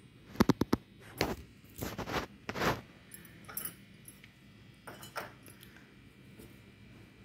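Stainless steel kitchen vessels clinking and knocking: a quick run of four sharp clinks about half a second in, then single knocks and short rattles over the next few seconds.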